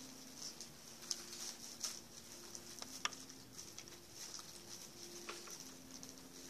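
A hushed room with scattered small rustles and clicks, over faint held low notes that change pitch every second or two.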